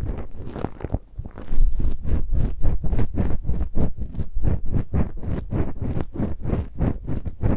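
Ear-cleaning ASMR scratching close on the microphone: a run of quick, even scraping strokes, about four to five a second, after a short pause a little after the first second.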